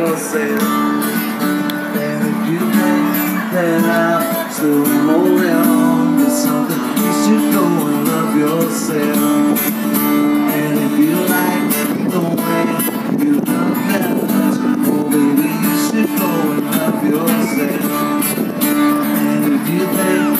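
Live music from a solo performer playing guitar and singing, amplified through a PA system.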